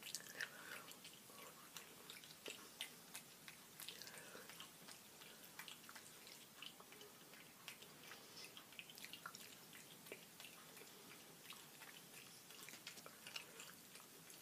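Near silence with faint, scattered small clicks and smacks from a capuchin monkey chewing spaghetti.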